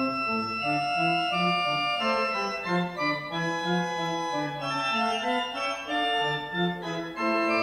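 Organ music closing the service: held chords over a bass line that moves from note to note.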